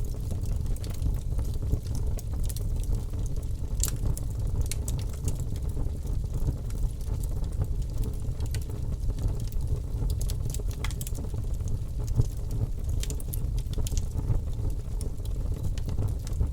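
Bonfire burning: a steady low rumble of flames with scattered sharp crackles and pops from the burning wood.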